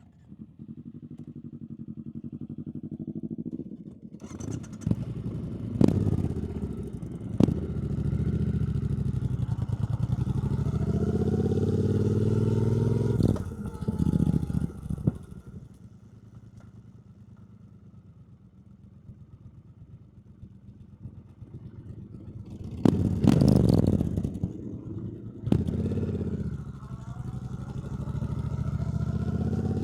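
2024 Triumph Bonneville T120's 1200 cc parallel-twin engine running under way, revs rising and falling through gear changes. It quietens for several seconds in the middle, then picks up again after a brief loud surge of noise.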